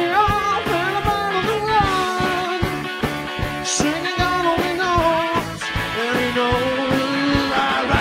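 Live rock band playing loudly: electric guitar and drums, with a sung vocal line over them.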